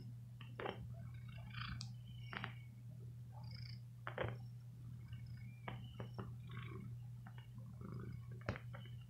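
Tabby cat purring steadily while suckling on a fleece shirt, with irregular wet sucking clicks every second or two. The suckling is nursing behaviour kept into adulthood, which the uploader puts down to early weaning.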